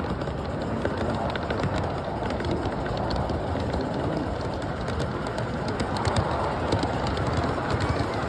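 Large-scale live steam model train, locomotive and freight cars, rolling past on the track: a steady rumble of wheels on rail with many small irregular clicks throughout.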